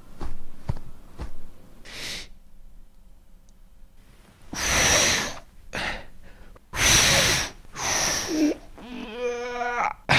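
A few light taps, then several loud, breathy exhales close to the microphone, and a short pitched vocal sound near the end, a foley rendering of someone breathing and sighing.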